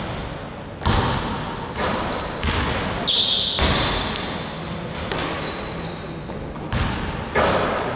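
Basketballs bouncing on a hardwood gym floor and striking the rim during a shooting drill: several sharp thuds with echoing tails, mixed with short high sneaker squeaks.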